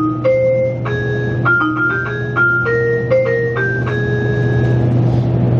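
Electronic chime of a JR Shikoku 8000 series train's automatic announcement system: a short melody of bright, bell-like keyboard notes that signals an on-board announcement is about to start. It ends about four seconds in, over a steady low hum in the car.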